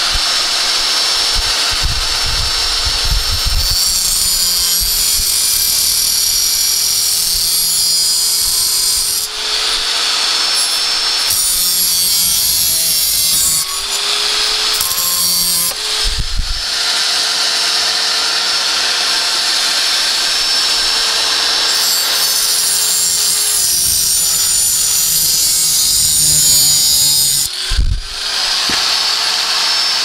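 Angle grinder with a thin cutoff disc running and cutting through the metal outer casing of a parking-brake cable, leaving the inner cable intact. The motor's steady whine sits under a loud grinding hiss that eases briefly a few times as the disc comes off the work.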